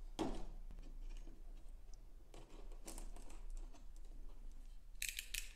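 A cardboard box being handled and its tape seal slit with a snap-off utility knife: a quick scrape as the blade cuts, then rustling and scraping as the box is turned over, with a quick run of sharp clicks near the end.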